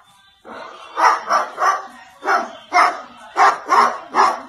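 About eight short, loud barks in quick runs of two or three, starting about half a second in.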